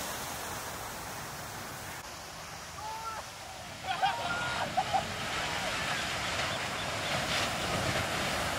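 Big shorebreak surf washing and breaking steadily, with a few short calls that rise and fall in pitch about four to five seconds in.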